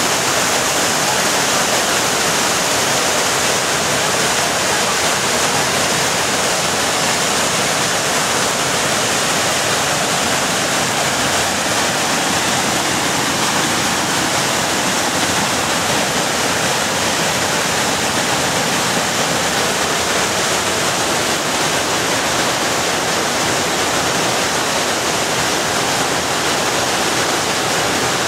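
Roaring River whitewater pouring over boulders at the Alluvial Fan waterfall: a loud, steady rush of falling and churning water.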